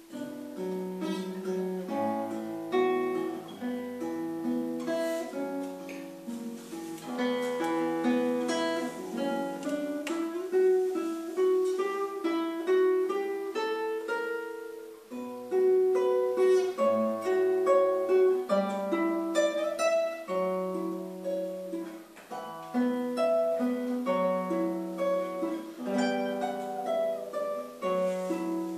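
Classical guitar played solo, fingerpicked: a continuous flow of plucked notes and chords that ring on, with bass notes under a moving melody.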